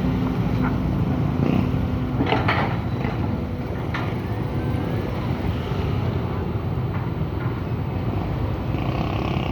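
Excavator's diesel engine running steadily, with a few short knocks about two and four seconds in and wind buffeting the microphone.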